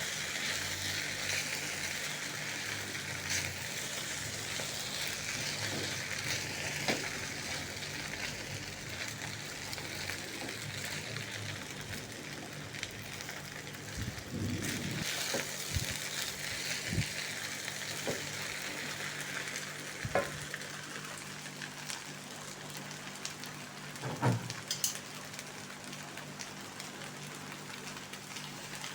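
Food sizzling in a hot pan while it is stirred, a steady hiss with scattered clicks and knocks of a utensil against the pan.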